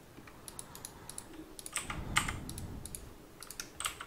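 Typing on a computer keyboard: quick, irregular key clicks, busiest around the middle.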